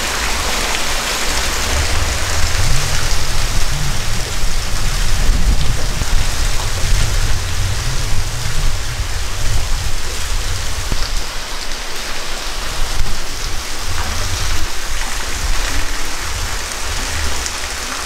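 Steady rushing roar of a waterfall, with a low rumble that swells and fades underneath.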